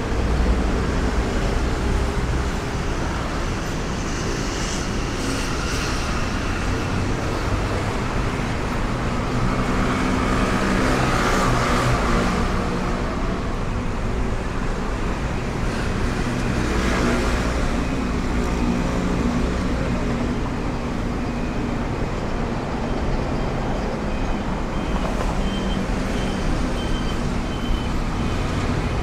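Steady city street traffic noise with a low rumble. Vehicles pass close by about ten seconds in and again around seventeen seconds in.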